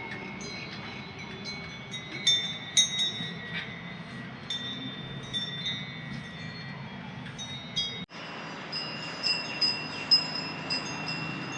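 Metal chimes ringing in repeated short strikes at several pitches, each tone dying away, over a low steady rumble. The sound cuts out sharply for a moment about eight seconds in.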